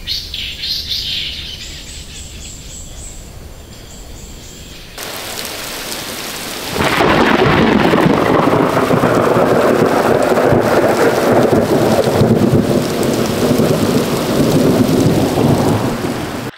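Heavy downpour in a thunderstorm: steady rain noise with a low rumble, quieter at first, then growing louder about five seconds in and much louder about seven seconds in.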